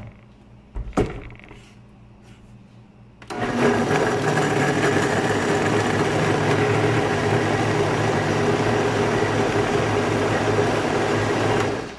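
A countertop blender's motor switches on a few seconds in and runs at a steady, loud whir as it purées a mushroom, onion and cream sauce, then cuts off just before the end. A knock about a second in as the jar is set on the base.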